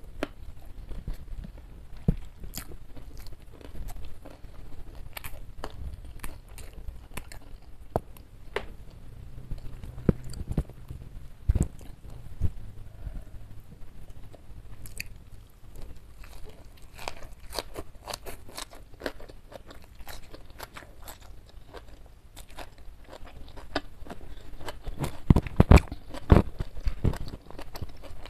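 Close-miked chewing and biting of a mouthful of rice, boiled fern shoots and jengkol curry, with many small clicks and crunches that come thickest and loudest near the end.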